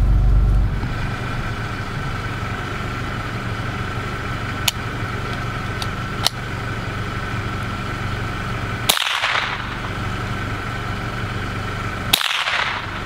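Two sharp rifle shots about three seconds apart, the second just before the end, each with a short ringing tail, over a vehicle engine idling steadily.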